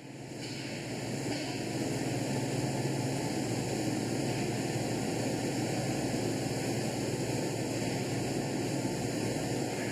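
Steady industrial hum and noise of a factory floor, fading in over the first second or two and then holding even, with a constant low drone under it.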